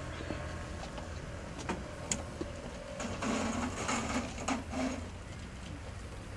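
Steady low background hum with a couple of faint clicks, and a brief murmur of voices from about three to five seconds in.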